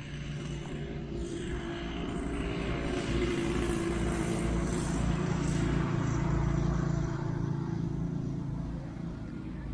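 An engine drones steadily as it passes, getting louder towards the middle and then fading.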